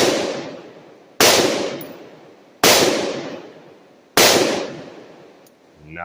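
Gunshots: three shots about a second and a half apart, each sharp crack fading out over about a second, following the fading tail of a shot fired just before. A man's voice comes in at the very end.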